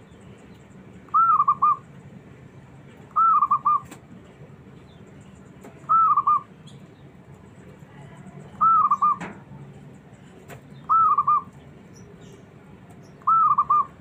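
Zebra dove (perkutut) cooing: six short phrases, each an arched note running into a few quick trilled notes, repeated about every two to three seconds.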